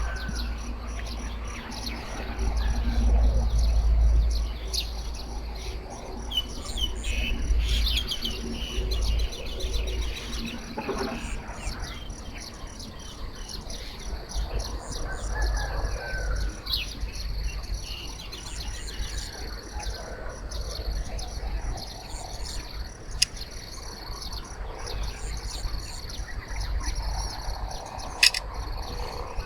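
Wild birds chirping and calling in many short, high notes throughout, over a steady faint insect drone and a low rumble.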